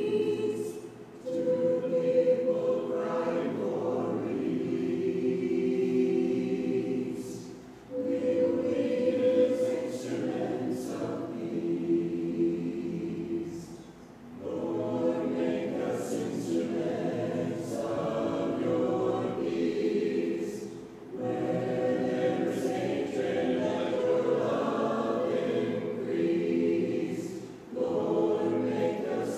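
A church congregation singing a hymn a cappella, without instruments, in long sung lines with a short pause for breath between lines about every six or seven seconds.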